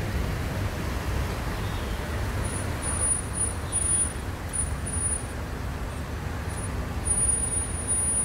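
Road traffic in a jam: a steady low rumble of vehicle engines. A thin high-pitched squeal comes and goes in short bursts from about two seconds in, longest near the end.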